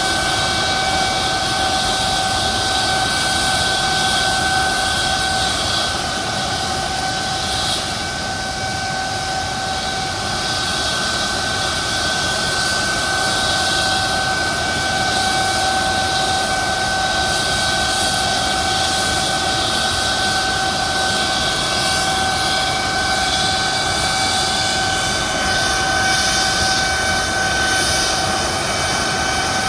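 McDonnell Douglas MD-900 Explorer helicopter's twin Pratt & Whitney Canada PW207E turboshaft engines running on the ground: a steady high turbine whine at two pitches over a rushing noise.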